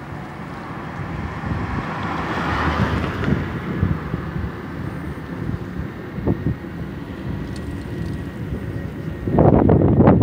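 Street traffic noise with wind on the microphone: a steady low rumble that swells for a few seconds early on as a vehicle goes by, and loud rough wind buffets on the microphone near the end.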